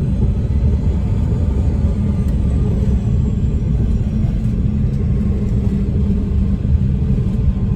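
Loud, steady low rumble inside the cabin of a CRJ-200 regional jet, with a steady hum underneath, heard as the jet slows on the runway after landing.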